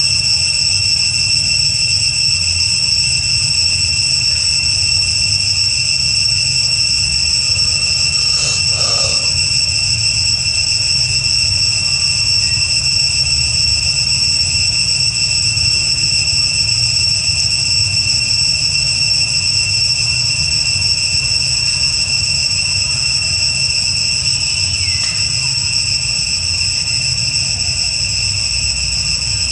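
Insects droning in a steady, unbroken high chorus over a low rumble, with a brief louder sound about nine seconds in.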